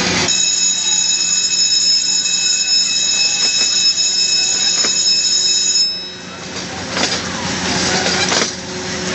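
A steady, high-pitched, alarm-like tone holds one pitch for about five and a half seconds and then cuts off. After that comes the general noise of fairground rides running.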